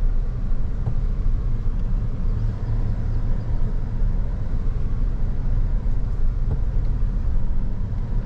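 Steady low rumble of a Toyota Tundra pickup heard from inside the cab while driving along a rough dirt trail: engine and tyre noise, with a couple of faint knocks.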